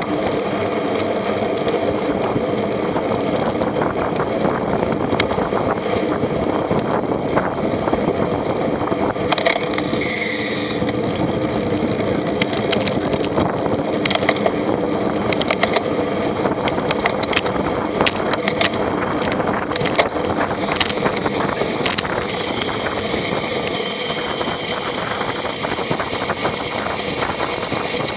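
A vehicle engine running steadily under load, with frequent sharp clicks and rattles over it.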